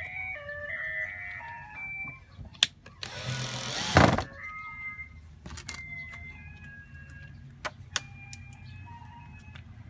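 A light background melody of short stepped notes over a steady low hum, with a few sharp clicks. About three seconds in, a loud rushing hiss lasts just over a second, ending in a sharp knock.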